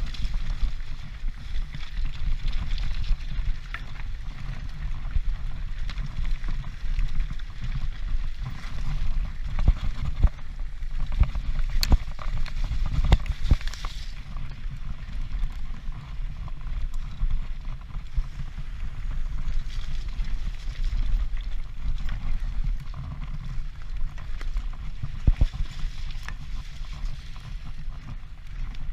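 Wind rumbling over a helmet-mounted action camera on a mountain bike riding downhill at speed, with bike rattle and a few sharp knocks from the rough trail.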